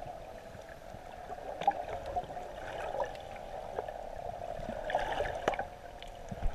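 Muffled underwater ambience picked up by a submerged camera: a steady dull wash of water noise with scattered clicks and crackles, a couple of them sharper.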